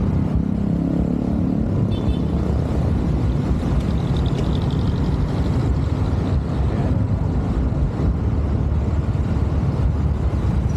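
Riding noise from a motorcycle on the move: a steady low engine drone mixed with wind buffeting on the microphone, plus a faint brief high whine near the middle.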